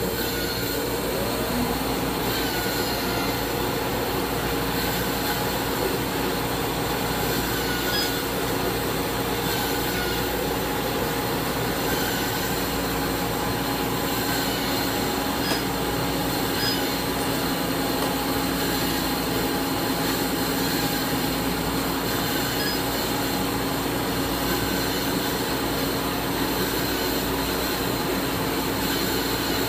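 Surgical smoke-evacuator vacuum running: a steady motor whir with a constant low hum.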